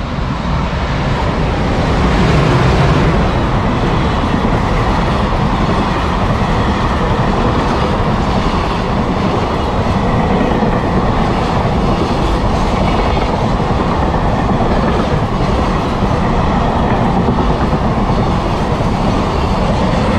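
Container freight train hauled by an EH500 'Kintaro' electric locomotive passing close by, loudest about two seconds in as the locomotive goes past, then a steady rumble of container wagons with wheels clattering over the rail joints.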